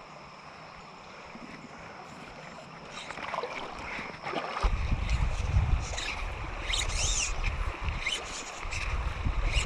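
A steady background hiss with faint high steady tones. About four and a half seconds in, a low buffeting rumble on the microphone sets in and comes and goes in pulses, with a few short high chirps around seven seconds in.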